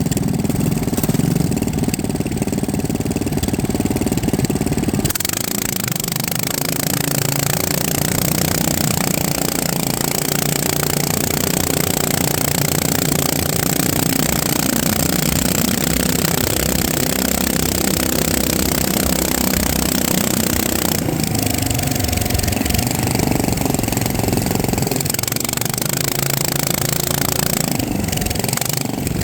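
A motor running steadily for about five seconds, then a rushing, noisier sound with its pitch shifting until about 21 seconds in, where it changes again.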